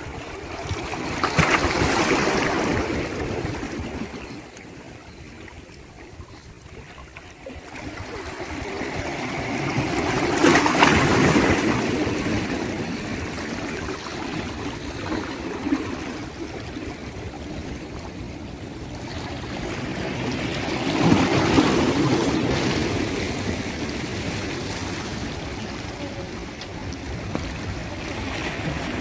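Calm sea waves washing onto the shore: three surges that swell and fade about ten seconds apart, with a steady hiss of surf in between.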